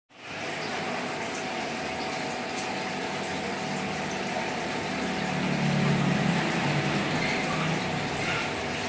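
Aquarium pump and filter running steadily, with water pouring and bubbling in the tank. A low hum grows louder for a couple of seconds past the middle.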